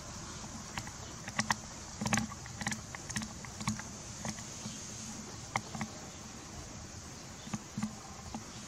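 Soft, irregular wet clicks and smacks from a mother cat and her newborn kittens at very close range, over a steady hiss.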